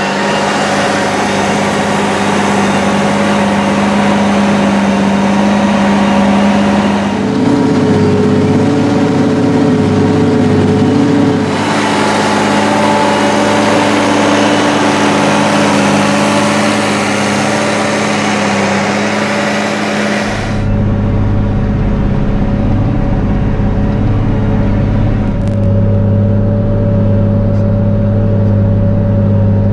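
SAME Titan 190 tractor's air-cooled V8 diesel running steadily under load while it pulls a plough through the soil. About twenty seconds in, the engine turns deeper and muffled, heard from inside the cab.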